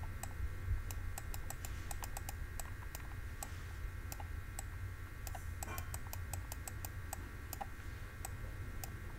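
Light, irregular clicks from handwriting being entered on a computer with a pen or mouse, several strokes a second at times, over a steady low hum.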